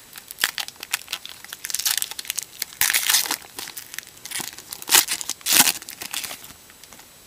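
Foil wrapper of a jumbo pack of Topps baseball cards crinkling and tearing open by hand: a run of irregular crackles, with the sharpest tears around three, five and five and a half seconds in.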